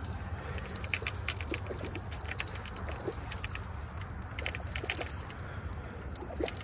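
Spinning reel being cranked to take in line, with irregular clicks and light water sounds over a steady high-pitched hum.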